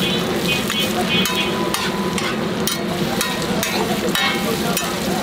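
Metal spatula scraping and clinking on a large flat steel griddle, two or three strokes a second, over the steady sizzle of egg and vegetables frying.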